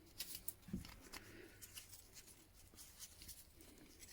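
Near silence with faint handling noise: scattered small clicks and one soft knock about three-quarters of a second in.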